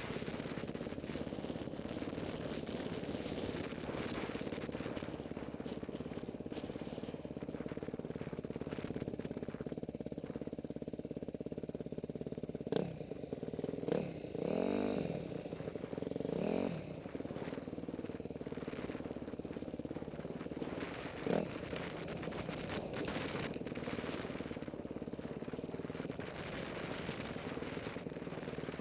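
Dirt bike engine running steadily under the rider on a trail, revving up and down a few times about halfway through. Two sharp knocks stand out, one just before the revving and one about eight seconds later.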